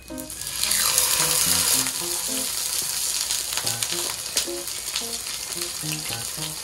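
Hot oil sizzling as a whole coated fish is laid into a frying pan. It flares up as the fish goes in, is loudest in the first couple of seconds, then settles into a steady frying sizzle.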